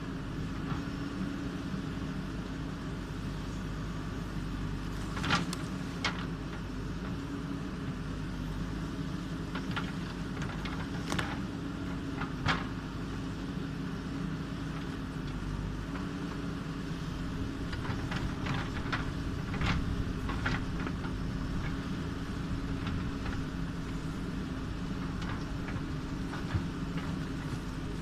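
JCB backhoe loader's diesel engine running steadily as the backhoe arm digs, with scattered knocks and clanks from the bucket and arm, a few single ones early on and a cluster about two-thirds of the way through.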